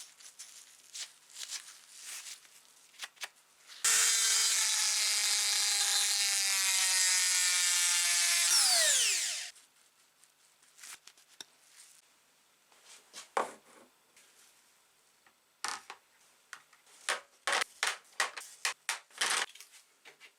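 A small electric power tool runs for about five seconds with a steady whine that sags slightly in pitch. It is then switched off and spins down with a falling pitch. Light clicks and knocks from parts being handled come before and after it.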